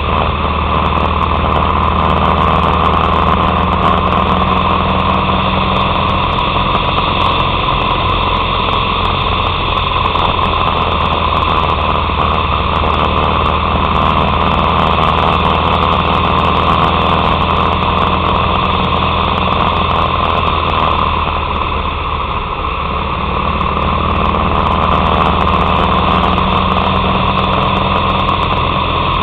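Harley-Davidson Sportster 883's air-cooled V-twin engine running steadily while the bike rides along. The engine sound dips briefly about three-quarters of the way through, then picks back up.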